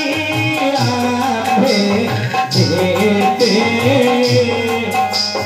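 Live folk-theatre accompaniment music: a hand drum playing a steady rhythm of about two strokes a second under a gliding melody on an electronic keyboard, with a bright metallic tick on the beat.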